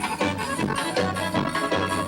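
A live band playing an instrumental stretch of forró-style dance music, with a steady bass and percussion beat and no singing.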